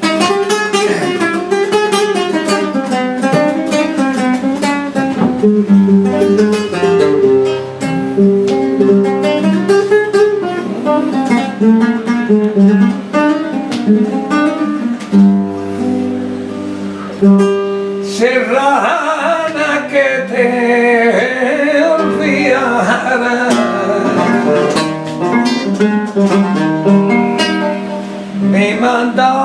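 Flamenco guitar playing a granaína: plucked melodic runs and held chords in free rhythm. About two thirds of the way through, a male cantaor's voice comes in singing over the guitar.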